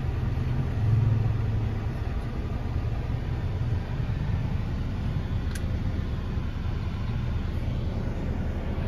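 Engine and road noise of a moving van, heard from inside the cabin: a steady low rumble, a little louder about a second in.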